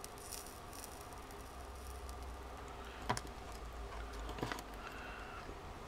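Small clicks and taps from handling a soldering iron, pliers and wire on a workbench, with one sharp click about three seconds in and two more about a second later, over a low steady hum.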